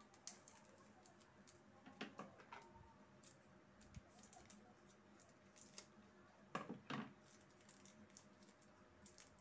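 Faint handling and peeling of a nasal test swab's sealed wrapper: mostly near silence, with brief crinkles about two seconds in and again near seven seconds in.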